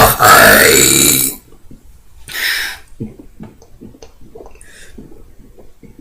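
A person belching the letter "Y" while burping the alphabet: one long, loud burp of about a second and a half, its pitch gliding upward as the letter is shaped. A short hiss follows about two seconds in.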